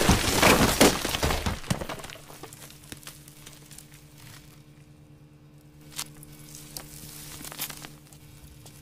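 A sped-up nightcore pop song ends, fading out within the first two seconds. A faint steady low hum with a few isolated sharp clicks follows.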